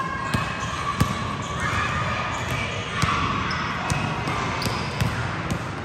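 Basketballs bouncing on a gym floor, sharp thuds coming at irregular intervals.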